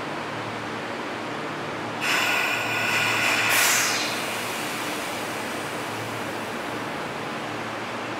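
Stationary Seibu 9000 series electric train humming at the platform, with a sudden loud hiss of released air about two seconds in that lasts about two seconds before fading.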